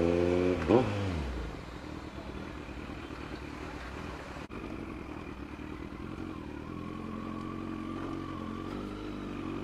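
Kawasaki Z900 inline-four engine, heard from the rider's seat, revving up briefly, then dropping quickly as the throttle closes about a second in, and running low and steady as the bike rolls slowly over a rough road.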